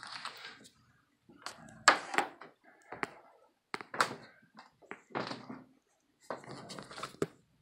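Scattered thunks, clicks and rustling of things being handled, coming irregularly every second or so.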